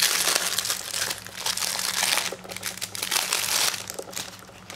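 Plastic wrapping crinkling and crackling as it is handled, in two long spells that die down near the end.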